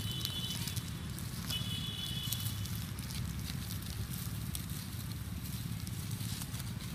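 Dry fallen leaves crackling and rustling as monkeys walk over them, over a steady low rumble. Two short thin high tones sound near the start.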